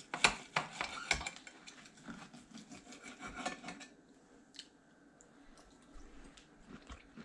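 Knives and forks scraping and clicking against plates as steak is cut. The clicks are busiest in the first second or so, then thin out to scattered, fainter scrapes.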